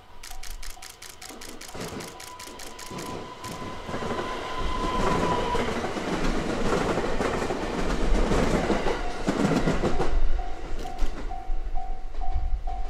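A JR West 287 series electric limited-express train passing close by: a rising rush of wheel and rail noise with quick clicking from the wheels, loudest for several seconds as the cars go by, then falling away. A level-crossing warning bell rings in a steady pulsing beat, about three strokes a second, at the start and again from about ten seconds in.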